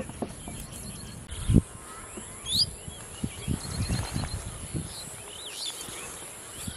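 Birds chirping over a steady high insect drone, with several low dull thumps, the loudest about a second and a half in.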